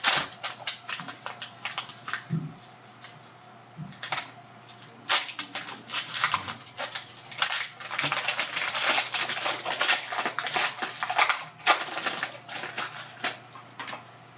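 Crinkling of a trading card pack's foil wrapper being torn open and cards handled in plastic sleeves: a run of irregular sharp crackles, with a quieter stretch about three to four seconds in.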